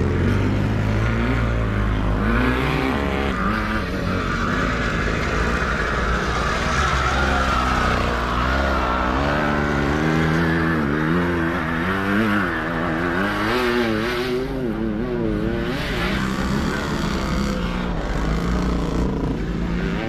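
Sidecar motocross motorcycles' engines running hard, their revs rising and falling again and again as the riders work the throttle.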